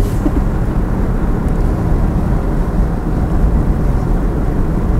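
Mazda MX-5 RF on the move, heard from inside the car: a steady low rumble of engine and road noise.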